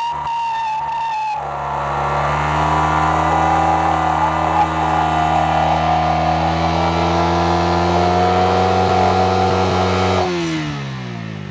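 A high whistling tone at first. About a second and a half in, a Yamaha R15 V3's 155 cc single-cylinder engine is held at high, steady revs in a stationary burnout, its rear tyre spinning on asphalt. The revs drop away near the end.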